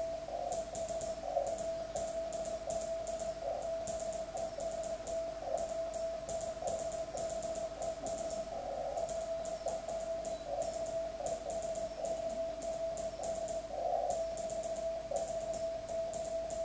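G0NVT PS213 Morse key clicking in quick, irregular groups as Morse code is keyed, over a continuous Morse tone from the ham radio that swells and fades unevenly.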